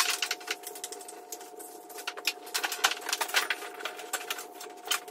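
Irregular light clicks and rattles of tools and cable being handled at a workbench, over a steady faint hum.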